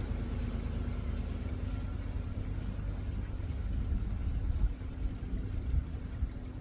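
Pickup truck engine running: a steady low rumble with an even engine hum that rises a little about five seconds in.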